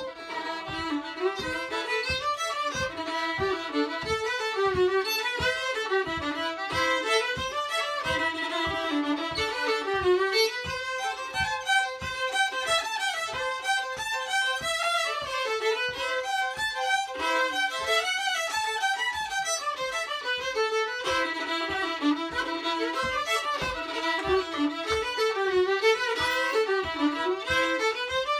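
Two fiddles playing a traditional Irish tune together, the melody starting right at the beginning and running on without a break, with a soft low thump on each beat beneath it.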